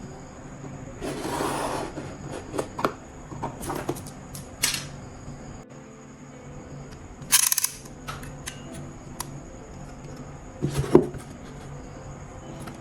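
Handling noises from hands-on crafting work: scattered clicks and knocks, with two short rasping noises, one about a second in and one past the middle, over a faint steady hum.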